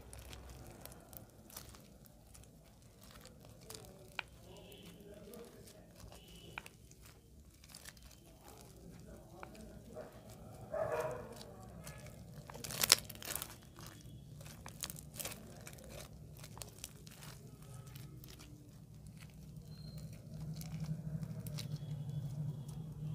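Crunchy bead-filled slime kneaded and squeezed by hand: a dense run of small crackles and pops, with one sharper snap a little past the middle. A low hum grows louder near the end.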